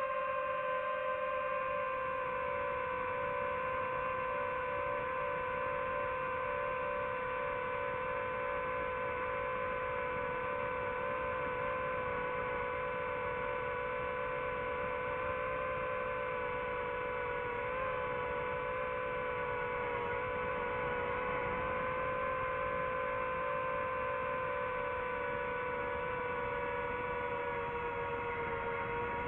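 DJI FPV drone's motors and propellers giving a steady humming whine, its pitch sagging and wavering slightly now and then.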